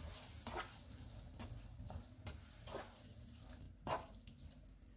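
Slotted plastic spatula stirring minced beef and yogurt in a nonstick pan: a handful of soft scraping strokes, the loudest about four seconds in.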